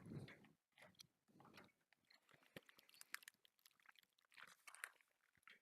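Faint chewing of a gummy fruit snack, with soft, irregular wet mouth clicks.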